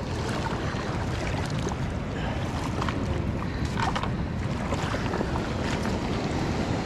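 Steady wind noise buffeting the microphone over a shallow flowing river, with a few faint ticks.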